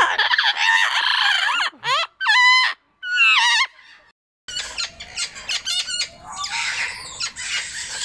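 Amazon parrots squawking loudly, followed by two warbling, wavering calls. After a break about four and a half seconds in, a busier mix of bird chirps and clicks.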